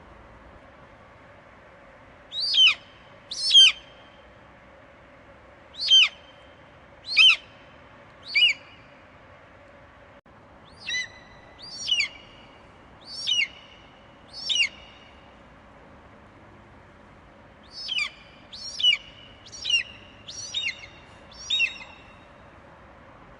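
Eagle screeching: short, piercing calls that fall in pitch, in groups of two to five with pauses between, over a faint steady hiss.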